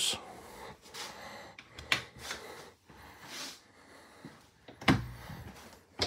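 A few faint breathy puffs and handling noises in a small, enclosed room, with one dull thump near the end.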